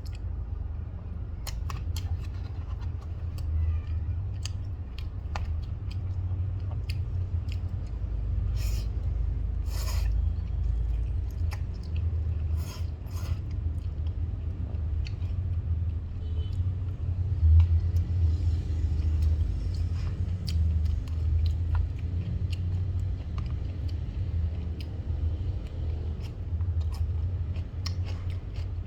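Close-miked eating sounds: scattered short crisp clicks and snips over a steady low rumble.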